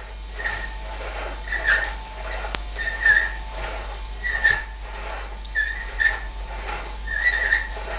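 Vacuum cleaner running steadily, with a short whistling squeal about every second and a half as it is pushed back and forth across the floor.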